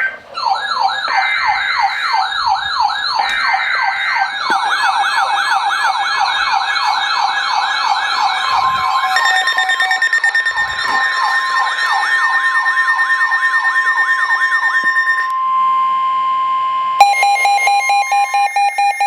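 Several electronic alert sirens sounding at once: fast up-and-down sweeping wails that overlap, with steady alarm tones joining about halfway through. The sweeps stop near the end and give way to a fast-pulsing beep.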